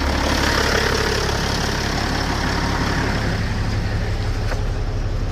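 Caterpillar C15 inline-six diesel in a Kenworth T800 idling, a steady low drone.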